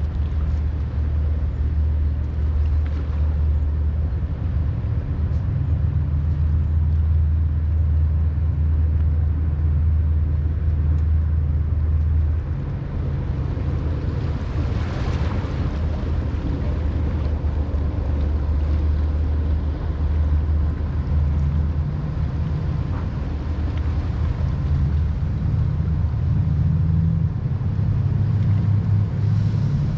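Boat engines running: a low, steady rumble that shifts in pitch a few times, with a brief rushing swell about halfway through.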